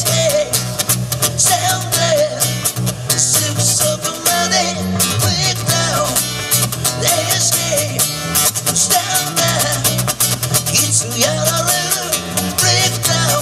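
Live duo of a strummed acoustic guitar and an electric bass, with a man singing into a microphone.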